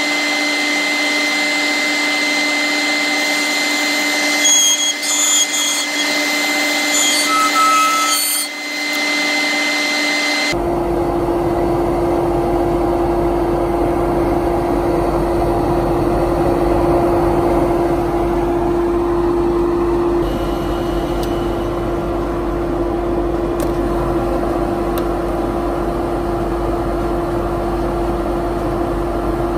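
Small wood lathe running steadily with a dust extractor drawing through the hood, while sandpaper rubs the spinning resin pen blanks. About ten seconds in the sound changes abruptly to a deeper, rumbling run.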